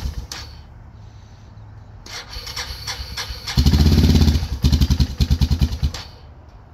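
A Yamaha Bear Tracker ATV's single-cylinder four-stroke engine idling, then revved with the throttle from about two seconds in. It is loudest in the middle and pulses as the revs fall, then drops back to idle near the end.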